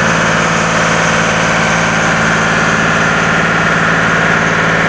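Boat engine running steadily with an even, unchanging drone.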